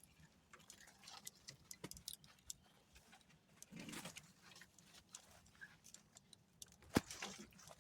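Faint footsteps and the light clicking and rattling of carried fishing gear while walking down a dirt bank. There is a soft scuff about four seconds in and a sharp click about seven seconds in.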